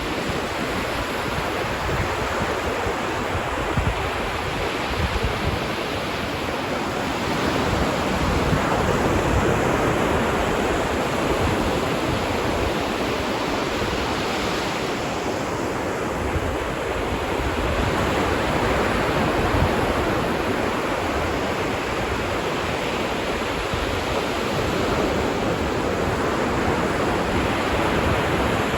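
Ocean waves breaking and washing on a beach, a steady rush of surf that swells and eases every several seconds.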